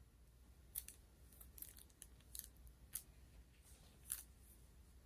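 Near silence with a handful of faint, crisp ticks and rustles from a plastic-covered diamond painting canvas being handled.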